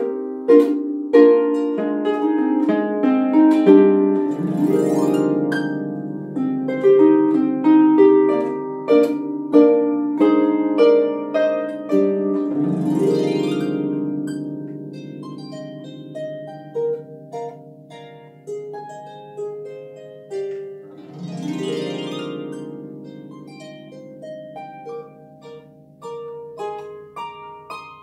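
Solo lever harp playing a flamenco-flavoured piece: quick plucked notes and chords, with three big swept chords over a low ringing bass note about every eight seconds. The playing grows softer through the second half.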